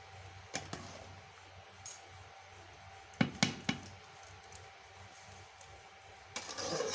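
Flat metal spatula stirring thick, cooking mango pickle in a steel bowl, knocking and scraping against the metal in a few sharp clinks. The loudest knocks come in a quick cluster about three seconds in, and there is a longer scrape near the end.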